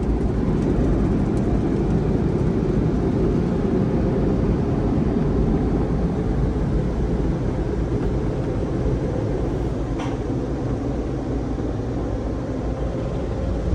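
PECO car wash drying blowers running with a steady rush of air, heard from inside the car's cabin. The noise eases a little as the car rolls out of the tunnel, and there is a faint click near the end.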